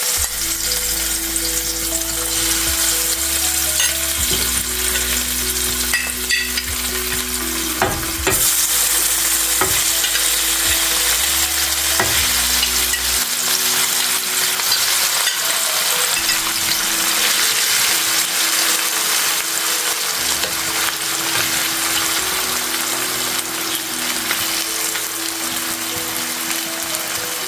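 Small marinated mola fish sizzling as they fry in hot oil in a frying pan, the sizzle growing louder about eight seconds in.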